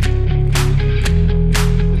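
Background rock music with electric guitar, a heavy bass line and a steady beat.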